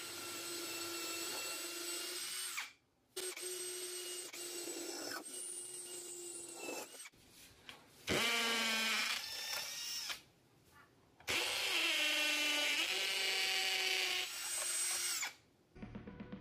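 Maxsell 20 V brushless cordless hammer drill running in about four short runs with brief silent gaps between them, drilling into a wooden board and a hollow concrete block. Its motor whine holds steady during each run and falls in pitch as some runs wind down.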